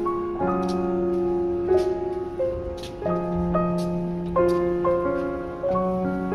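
Background piano music: a gentle melody of held notes, played one after another.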